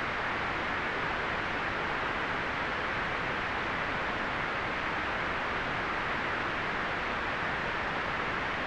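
Steady white noise: an even, unchanging hiss, strongest in the upper middle and softer at the very top.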